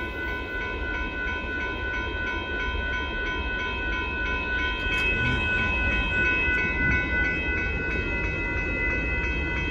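Railroad grade-crossing bells ringing in a fast, even, repeating pattern over the steady low rumble of a Union Pacific grain train passing the crossing.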